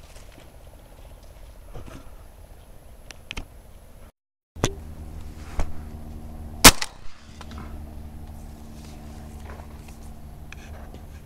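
A single loud shotgun shot about two-thirds of the way in, with a few lighter clicks before it over a steady outdoor background. The sound drops out briefly a little before the shot.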